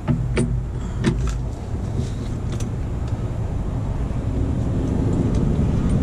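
A few light clicks and knocks of metal as a laptop-stand pole is handled and slipped down onto its floor-mount post, over a steady low rumble.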